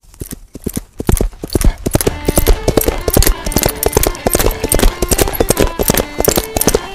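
Dubbed sound effect of horses galloping: a fast, dense run of hoofbeats that starts abruptly out of silence.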